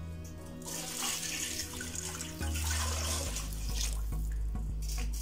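Water poured from a glass jug into a pot of fried spice masala, splashing into the liquid. The water is being added to cook rice in. The pouring starts about a second in and eases off after about three seconds, over background music.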